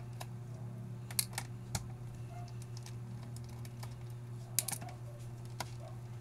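A handful of sharp clicks and taps of small hard parts being handled, as a removed 2.5-inch laptop hard drive and its cover are set down into a plastic box, over a steady low hum.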